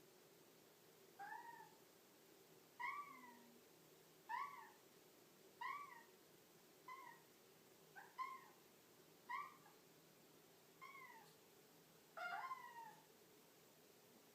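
A Devon Rex cat giving a series of about ten short, high meows, one every second or so, each rising then falling in pitch. Near the end, two calls come close together.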